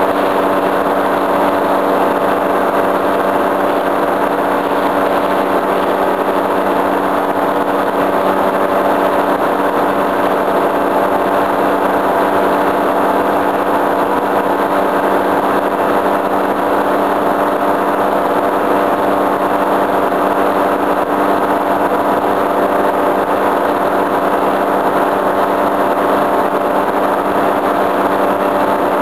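Tandem paramotor trike's engine and propeller running steadily in flight: a loud, constant drone that holds one pitch throughout.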